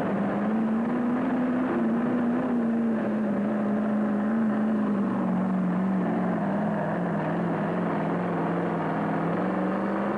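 Modified pulling tractor's engine running hard under load: a loud, steady drone whose pitch sags slowly and rises again near the end.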